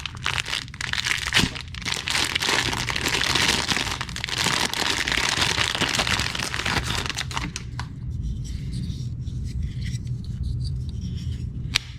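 Packaging being torn open by hand: strong tape pulling away and cardboard and plastic ripping and crinkling, continuous for about seven seconds, then quieter handling with a few sharp clicks.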